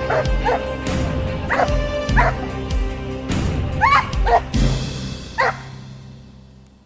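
Pit bull yelping and yipping in short high-pitched bursts, about seven times, over background music that fades out near the end.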